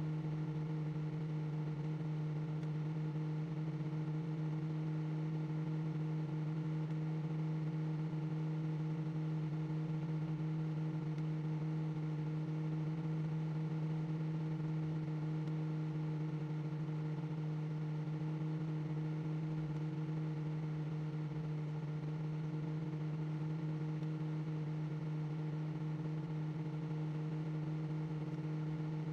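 Microwave oven running: a steady, unchanging electrical hum.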